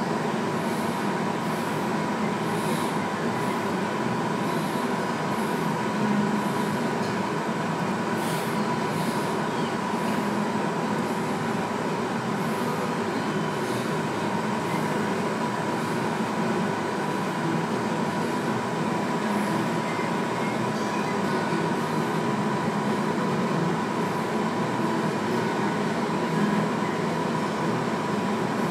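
Steady machine-like hum and hiss with a constant high tone, holding an even level, with faint short hisses every second or so.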